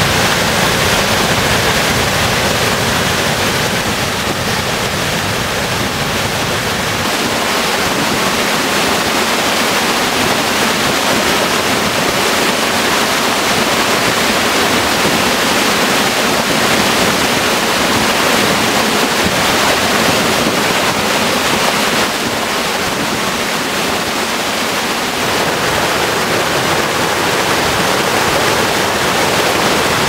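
Waterfalls swollen with spring snowmelt, a loud, steady rush of falling and churning water. The sound shifts about seven seconds in, losing its deepest part, and changes slightly again about twenty-two seconds in as another fall is heard.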